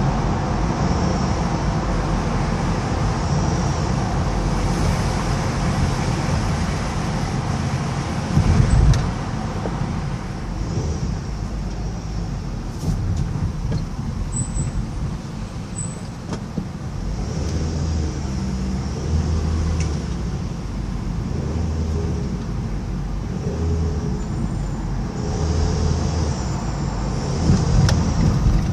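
Car driving in traffic: a steady low rumble of road and engine noise with other vehicles around, and a short thump about eight seconds in and another near the end.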